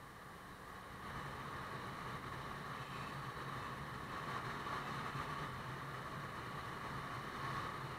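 Motorbike engine running steadily while riding, with road and wind noise, getting a little louder about a second in.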